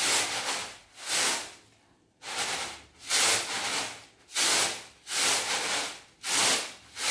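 Rice being winnowed in a round woven bamboo tampah tray: the grains are tossed and shaken so they rush and hiss across the tray in rhythmic surges about once a second, with a short break about two seconds in. The tossing separates husks, unhulled grains and grit from the rice.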